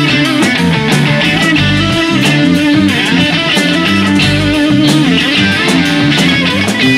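Rock band playing live: two electric guitars, bass guitar and a drum kit in an instrumental passage with no singing, cymbals and drums keeping a steady beat.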